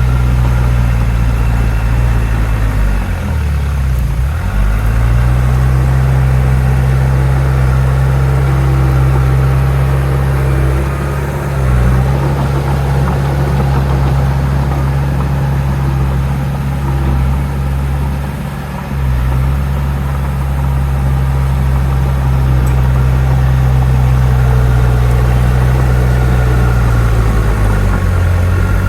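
Heavy diesel engine of earthmoving machinery running, a steady low drone whose pitch dips briefly about four times as the load changes.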